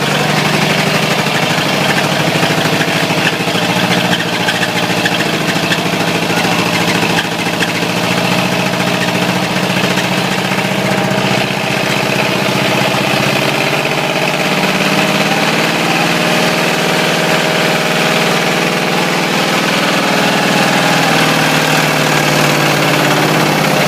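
Ford 351 Windsor V8 running steadily with a spun bearing, its pitch rising a little partway through and easing back down near the end.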